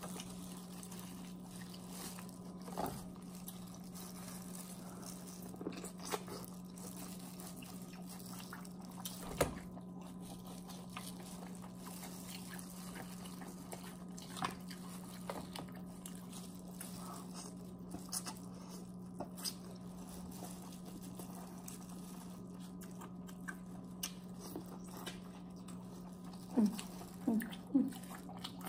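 Close-up eating sounds: scattered chewing, small crunches and cracks of king crab shell and wet mouth sounds over a steady low hum, with a few louder short sounds near the end.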